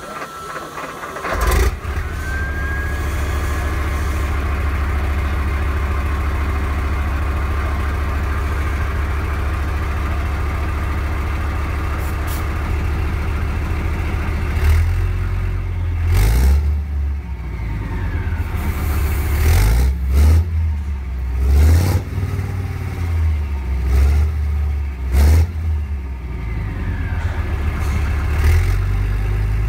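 Leopard 1 tank's 10-cylinder multi-fuel engine starting about a second and a half in, then idling steadily. From about halfway on it is revved up and let fall back several times.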